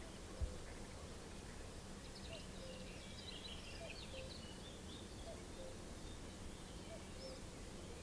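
Faint outdoor field ambience: a steady low rumble with small birds chirping in the distance, the chirps mostly in the middle of the stretch. A single soft knock comes about half a second in.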